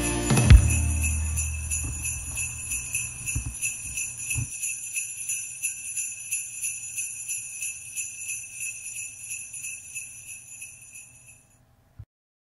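Sleigh bells shaking in a steady rhythm at the end of a song, slowly fading out. A loud final hit of the music about half a second in is the loudest moment, and a low held tone dies away over the next few seconds.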